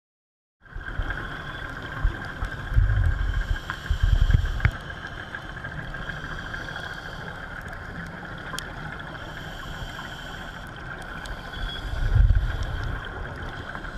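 Underwater sound picked up through a diving camera, starting just under a second in: a steady hum with low rumbles about three and four seconds in and again near the end, and scattered sharp clicks.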